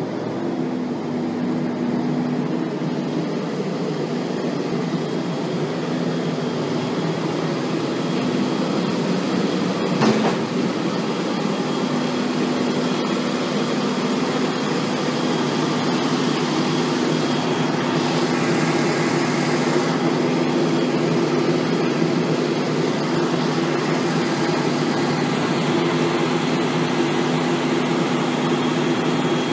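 Fendt 309 Vario tractor's diesel engine running steadily under load while it works a front loader clearing manure, with one sharp knock about ten seconds in, the loudest moment.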